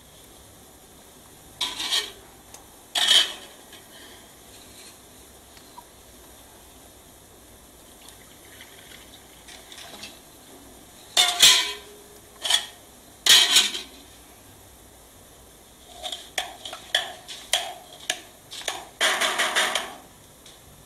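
Kitchen utensils knocking and clattering in short, irregular bursts with quiet gaps between, a wooden mortar and a metal plate being handled. The clatter grows denser near the end.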